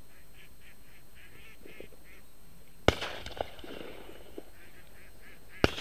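Flock of ducks calling overhead in quick repeated quacks, then a loud shotgun shot about three seconds in, two fainter shots after it, and another loud shot near the end.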